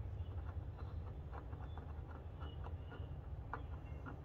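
A few faint, small clicks of a T-handle Allen key working a screw out of a motorcycle fuel filler-cap ring, over a low steady background rumble.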